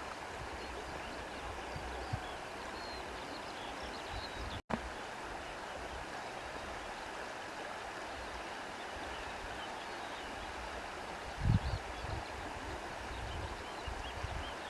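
Steady rushing of a stream's running water, cut off for an instant about four and a half seconds in, with a few low bumps near the end.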